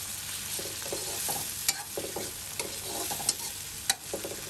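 Cherry tomatoes, onion and garlic sizzling in butter in a wok while a spatula stirs and scrapes them round the pan, with a few sharp clicks.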